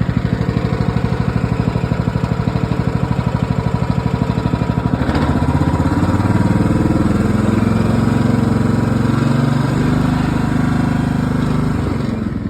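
Riding lawn mower engine idling with an even pulsing beat, then throttled up about five seconds in and held at a higher speed, easing back down near the end.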